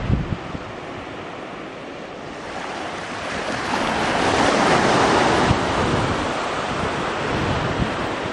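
Waves washing on the shore, one swelling in and peaking about halfway through before easing off, with wind buffeting the microphone.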